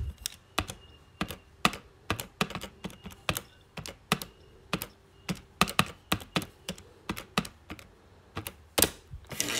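Calculator keys being pressed one after another to enter a calculation: a run of sharp, irregular clicks, two to three a second.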